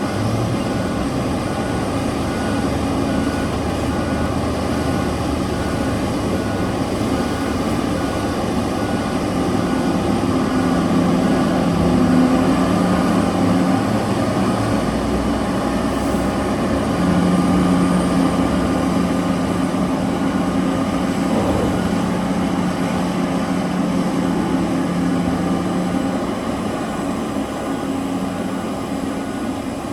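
Large diesel engines of heavy mining machinery running steadily under load, the engine note shifting and growing louder for a while in the middle.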